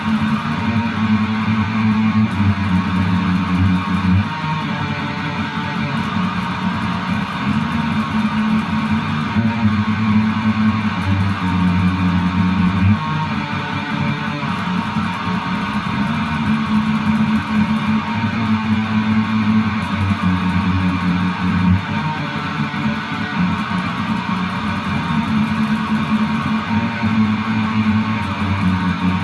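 Music led by guitar, with held bass notes that change every couple of seconds.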